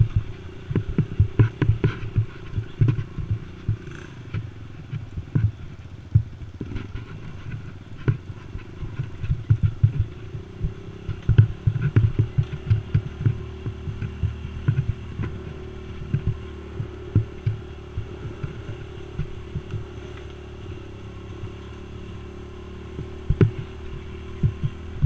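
Youth ATV's small engine running steadily under way on a rough dirt trail, mixed with frequent thumps and rattles from the quad jolting over bumps. The jolts come thickest near the start and again around the middle, and thin out later on.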